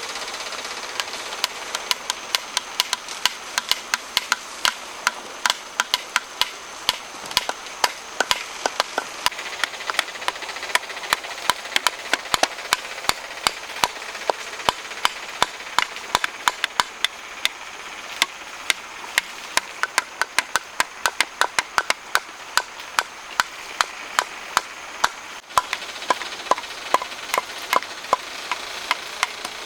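Rapid, irregular sharp knocks, about two or three a second, of a hand tool striking wood, over a steady background hiss.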